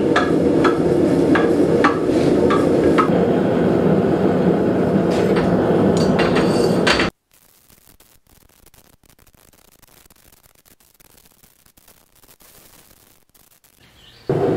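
Steady roar of a propane forge burner, with light metallic clinks of a steel scale-armor piece as it is lowered into a quench tank for hardening. About seven seconds in, the sound cuts off abruptly to a faint hiss.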